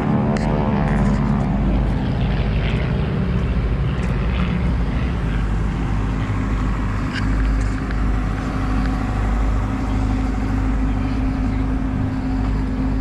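Steady drone of engines, with a whine that drops in pitch during the first second as something passes.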